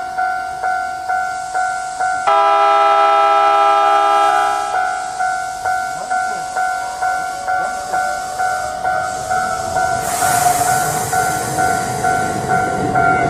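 Electronic level-crossing warning bell dinging steadily about twice a second. A couple of seconds in, a train sounds a loud chord-like horn for about two and a half seconds. From about ten seconds in, the train passes over the crossing with a rush of running noise.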